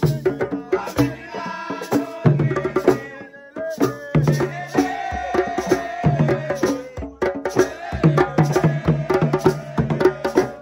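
Live hand-drum music: a djembe struck with bare hands in a fast, dense rhythm, with deep bass strokes and a rattle shaking along. A voice sings over the drumming, holding a long, bending line in the second half.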